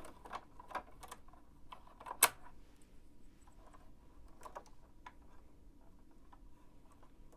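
Small clicks and taps of a bobbin and bobbin case being fitted back into a Bernina sewing machine's hook area, with one sharp click about two seconds in.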